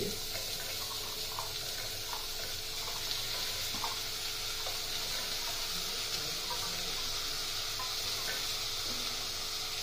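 Onion-tomato masala sizzling steadily in a pressure cooker on a gas burner, with a few faint light knocks as raw potatoes and chickpeas are tipped in from a steel bowl.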